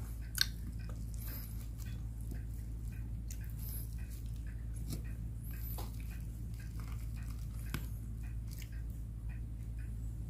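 Soft chewing of a mouthful of okonomiyaki, with a few faint clicks of a metal fork against the food and the paper box, one sharper about half a second in, over a steady low hum.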